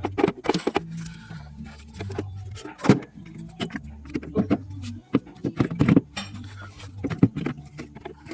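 Irregular metallic clicks, clanks and knocks of hand tools and parts being handled during work on a van's engine bay, over a low steady hum.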